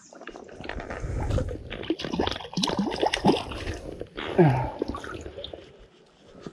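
River water splashing and sloshing around a landing net as a hooked trout is netted: irregular splashes and gurgles that die away near the end.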